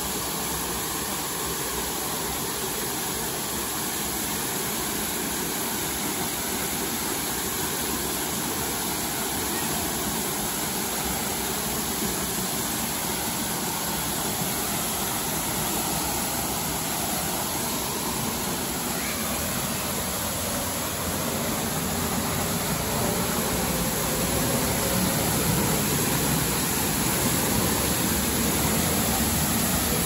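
Waterfall pouring into a pool: a steady rushing of falling water that grows louder in the last third.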